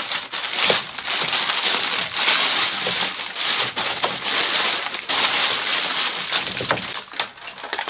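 Vacuum-bagging film and resin-stiffened peel ply being ripped off a cured carbon fiber infusion: continuous crinkling and tearing with many sharp crackles.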